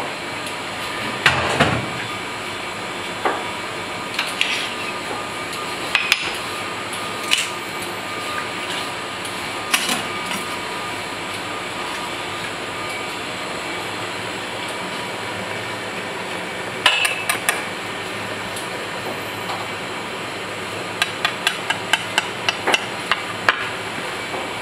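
Kitchen utensil sounds: scattered clinks and taps of metal tools on steel trays and the counter over a steady background hum. Near the end comes a quick run of knife strokes on a cutting board, about four a second, as a scampi tail is sliced.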